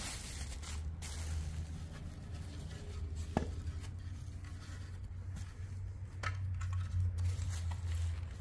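Bubble wrap and a cloth bag rustling and crinkling as a part is unwrapped by hand, with scattered light clicks and one sharp tick about three and a half seconds in, over a steady low hum.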